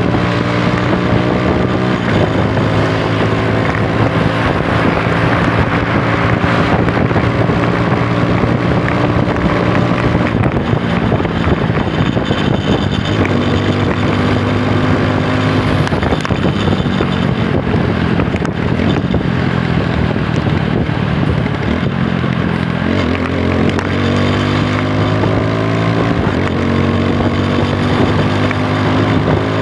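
TVS Apache RTR 160 4V motorcycle's single-cylinder engine running under way, with wind noise on the microphone. The engine's pitch drops and then climbs again in the last few seconds as it accelerates.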